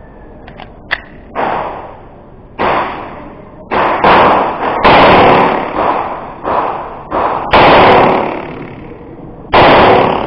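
Canik 9mm pistol firing about ten shots at an uneven pace, roughly a second apart, each report followed by a short echo off the range's walls and roof.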